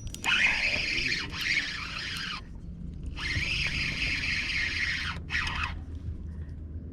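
Spinning fishing reel whirring in two long runs, each about two and a half seconds, with a short break between, as line comes in or goes out while a hooked bass fights.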